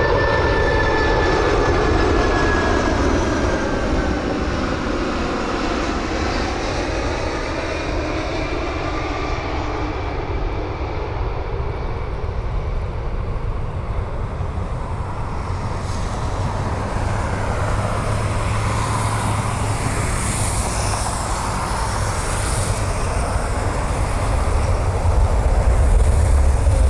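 Boeing 747-400 jet engines on landing approach. Their whine glides down in pitch as the jet passes. After touchdown comes a steady rumble that grows louder near the end as the jet rolls out on the runway.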